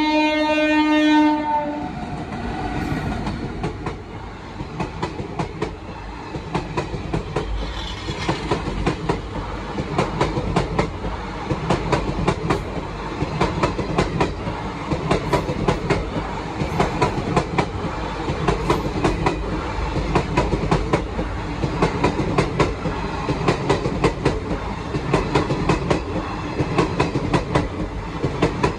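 An Indian Railways train horn gives a long blast that ends about a second in. Then a train of vans passes close by: a steady rumble of wheels on rail, with rapid, regular clickety-clack as the wheels run over the rail joints, growing denser and louder after several seconds.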